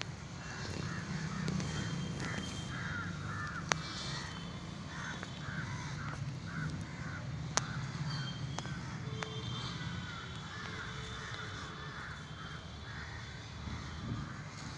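Crows cawing over and over, with two sharp clicks about four and seven and a half seconds in.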